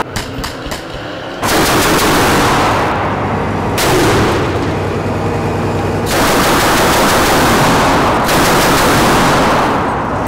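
BMD-4M's 30 mm automatic cannon firing long, rapid bursts, almost without a break from about a second and a half in, after a few quieter sharp cracks.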